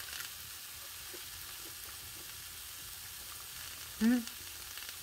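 Nettle and dandelion greens frying in oil in a pan, sizzling steadily. A short voiced sound comes about four seconds in.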